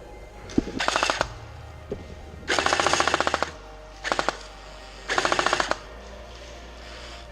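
Airsoft M249 machine gun firing four rapid full-auto bursts, the longest about a second and the shortest a quick squirt near the middle, each a fast, even rattle of shots.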